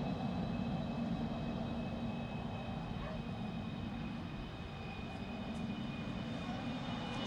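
Dornier 328JET's twin Pratt & Whitney Canada PW306B turbofans running at low taxi power as the jet turns on the runway: a steady high whine of several tones over a low rumble.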